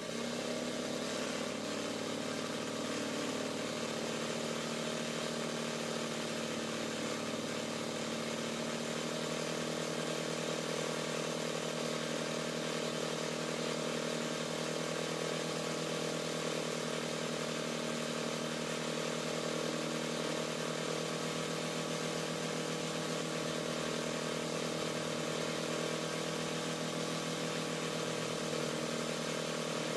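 RANEW 130 zigzag sewing machine running steadily under motor power, its needle stitching a free-motion embroidery border.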